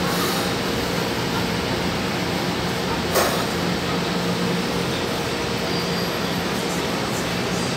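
Metro train standing at an underground platform with its doors open, its equipment giving a steady hum over a constant hiss. A single sharp click sounds about three seconds in.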